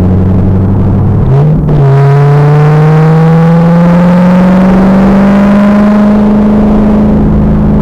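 2000 Pontiac Trans Am Firehawk's 5.7-litre LS1 V8 under load on track. It holds steady, breaks off briefly about a second and a half in, as at a gear change or a lift, then pulls with the revs climbing steadily. The sound is loud and distorted on the car-mounted camera's microphone.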